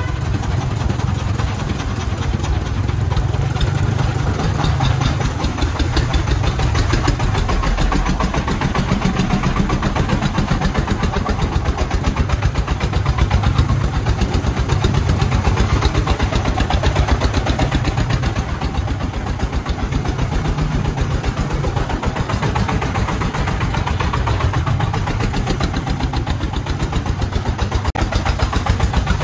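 Single-cylinder diesel engine of a công nông three-wheeled farm truck, rated at 24 horsepower, running steadily under load with a fast, even beat as the truck hauls a full bed of sand.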